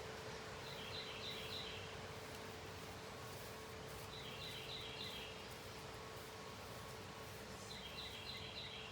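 A bird repeating the same short phrase of quick high notes three times, about every three and a half seconds, over a steady background of wind noise and a low steady hum.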